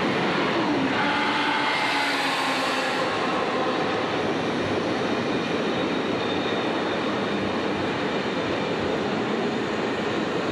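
Commuter train passing close by at speed: a steady rushing clatter of wheels on rail, with a few thin whining tones in the first few seconds.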